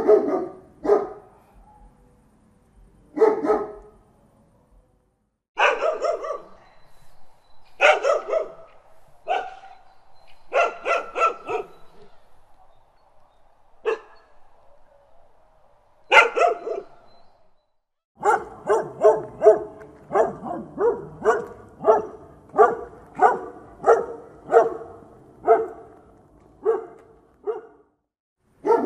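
A dog barking: separate barks and short volleys for the first half, then a steady run of barks at about two a second for the last ten seconds.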